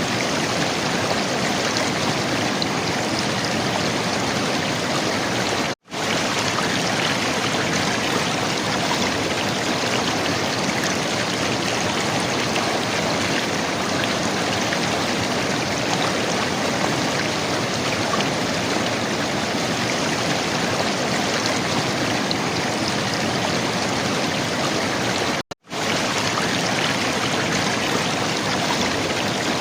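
River water flowing and gurgling steadily. The sound drops out to silence for a moment twice, about 6 and 25 seconds in.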